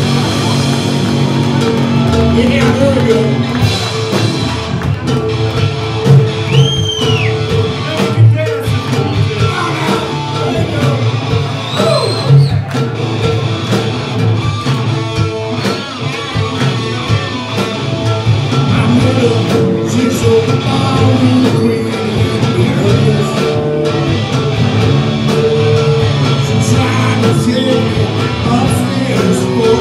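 Live rock band playing: electric guitars, bass and drum kit under a lead singer, heard from among the audience in a large hall.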